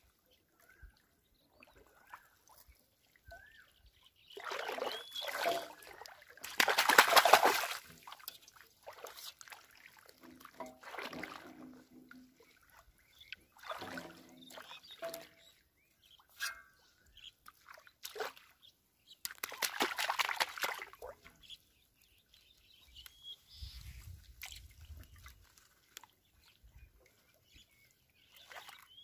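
Shallow pond water splashing and sloshing in several irregular bursts as a person wades and works their hands through floating weed; the loudest splash comes about seven seconds in.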